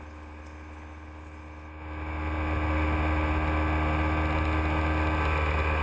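Motorcycle engine running at a steady speed while riding, a low steady drone that gets louder about two seconds in.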